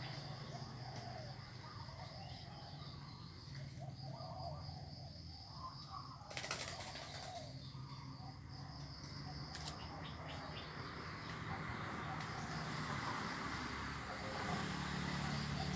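Birds squabbling, with a sudden flurry of wing-flapping about six and a half seconds in and short calls scattered through, over a steady high-pitched drone.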